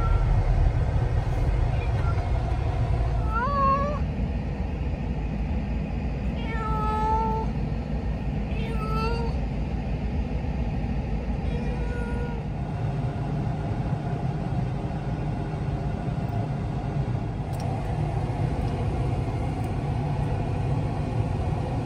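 Domestic cat meowing about four times in the first half, one call rising in pitch and one longer than the others, over the steady low road rumble inside a moving car.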